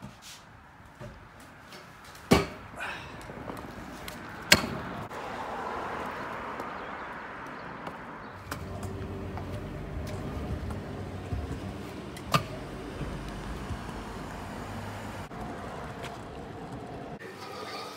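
Stunt scooter riding over concrete and asphalt: the small hard wheels make a steady rolling rumble, louder and rougher over the second half. Three sharp clacks stand out, the loudest about twelve seconds in.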